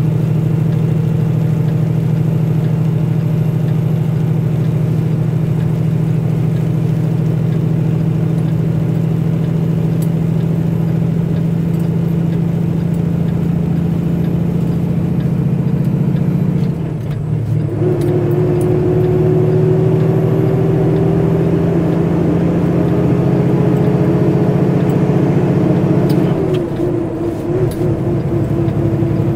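Tanker truck's diesel engine running steadily while climbing a mountain road. The engine sound dips briefly about two-thirds of the way in, then comes back with a note that climbs slowly, and it dips again near the end.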